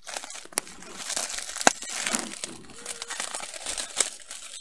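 Plastic wrap crinkling and crackling as hands pull and peel it off a plush toy, with a few sharp snaps of the film.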